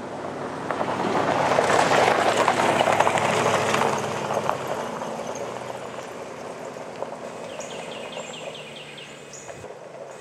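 A pickup truck drives past close by on a gravel road, its tyres crunching and popping the loose gravel. The sound swells to its loudest about two seconds in, then fades as the truck moves away.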